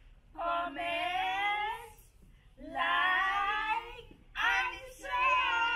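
Women and children singing together in drawn-out phrases, with short breaks between them.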